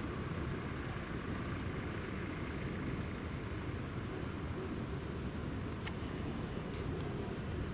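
High, steady insect chirring starts about a second and a half in and stops near the end, over a steady low outdoor rumble. A single sharp click comes just before six seconds.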